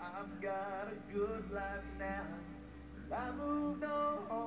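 Pop song with a man singing long held notes over a steady instrumental backing.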